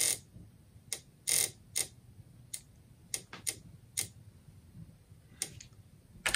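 Noisy Disk Sounder relay clicking sharply at uneven intervals, about a dozen clicks, as the Apple II boots from a floppy-disk emulator. Each click marks the emulated Disk II drive stepping its head to a new track, mimicking the old drive's head-seek noise.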